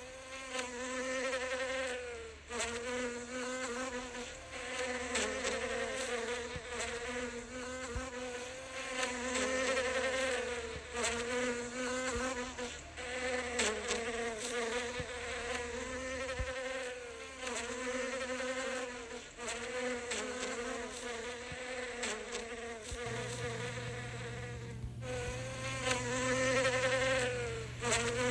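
A bee buzzing in flight close to the microphone while foraging. The wingbeat drone wavers in pitch and loudness as it moves, breaks off briefly near the end, then resumes.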